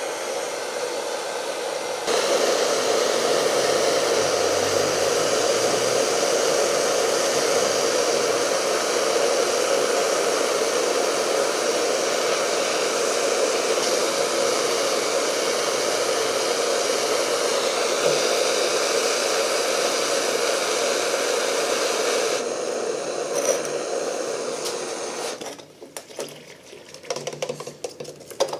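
Butane blowtorches hissing steadily as they heat a steel clip, louder from about two seconds in. The hiss drops near the end and cuts off, followed by scattered crackles as the hot clip is quenched in the smoking can.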